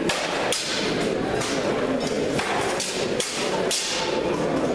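Steel longswords striking each other and plate armour in a full-contact bout: a string of about seven sharp metallic hits, irregularly spaced, some coming in quick pairs.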